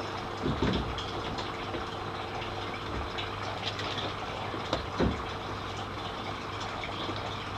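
A PVC drain pipe being handled and pushed into its fitting, giving two dull knocks, one about half a second in and one about five seconds in, over a steady low hum.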